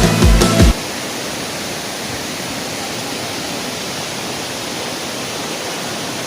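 Music with a heavy beat cuts off suddenly under a second in, leaving the steady rush of a waterfall.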